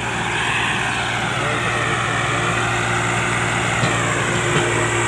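Swaraj 744 tractor's three-cylinder diesel engine running under load as it moves a loaded stone trolley over mud, its pitch dipping and then rising again. Two light knocks come near the end.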